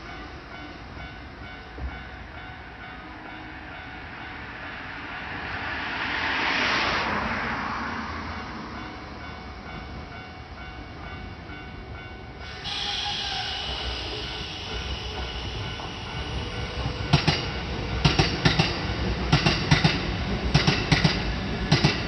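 A swell of passing noise about six seconds in. About halfway through, a level-crossing warning alarm starts abruptly. A Kintetsu train then runs over the crossing, its wheels clacking over the rail joints, mostly in pairs.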